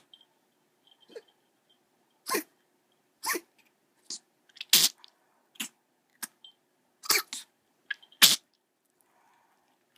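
A dog with a tracheal stent coughing: a run of about ten short, sharp coughs over eight seconds, the loudest about halfway through and near the end.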